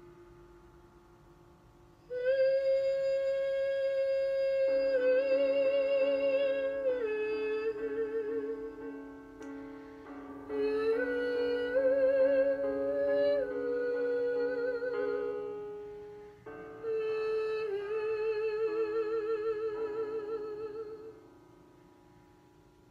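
A woman singing long held high notes with vibrato in three phrases over piano accompaniment; the last phrase fades out a couple of seconds before the end.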